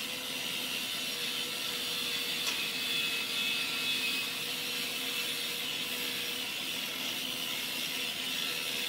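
Electric angle grinder running steadily with its abrasive disc held against the steel tubing of a mini bike frame, grinding it clean and throwing sparks: a constant motor whine under the rasp of the disc on metal.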